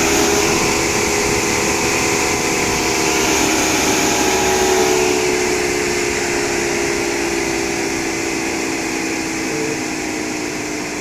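Electric radiator cooling fan of a 2.0 CDTI Astra running after a fan test, its whine slowly falling in pitch and getting gradually quieter as it slows down. The fan runs again now that a broken wire in the fan relay circuit has been resoldered.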